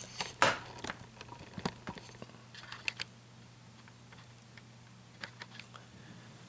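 Light, scattered clicks and taps from small hard items handled on a workbench: one sharper click about half a second in, a few faint ticks after it, and a few more near the end. A low steady hum runs underneath.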